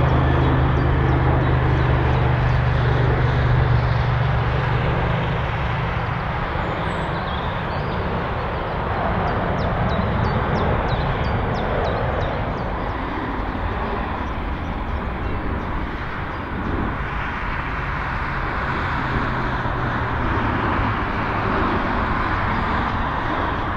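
Jet engines of an Airbus A320-family airliner touching down and rolling out on the runway: a deep rumble, loudest in the first five seconds, easing into steady jet noise.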